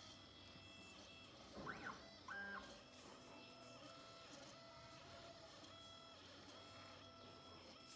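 Stepper motors of a home-built three-axis CNC machine, run by TB6600 drivers, faintly whining as the axes move on a test run: steady tones that change pitch from move to move, with a quick rising-and-falling sweep a little under two seconds in and a short ramp up and back down just after.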